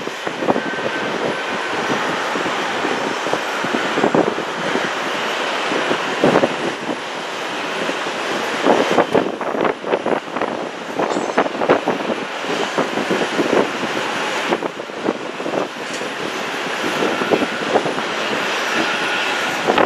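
Jet engines of an Airbus A310-300 running at low power as the airliner rolls out along the runway after landing: a steady rushing jet noise, with a faint high whine coming in about a second in and again near the end.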